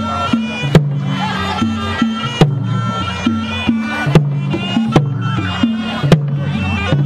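Cambodian pinpeat ensemble playing: a reedy, wavering sralai oboe melody over low sustained tones, punctuated by sharp percussion strikes at a steady pulse a little under once a second.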